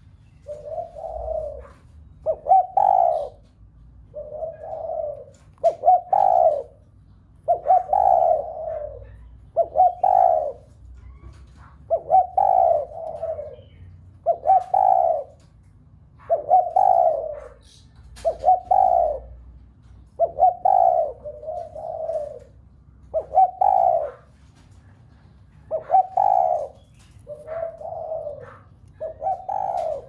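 Spotted dove cooing over and over, one multi-note coo phrase about every two seconds. This is the loud challenge coo that keepers play to set other spotted doves cooing.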